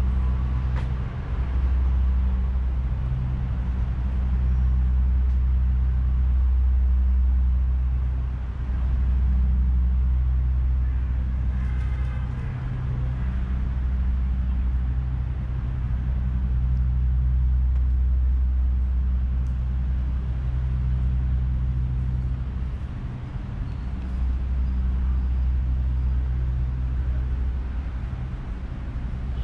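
Steady low rumble of city road traffic, with a low engine hum that comes and goes. A brief higher-pitched tone sounds about twelve seconds in.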